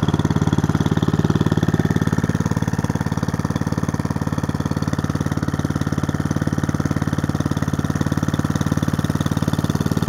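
Honda snowblower's four-stroke engine running steadily just after a one-pull cold start, warming up.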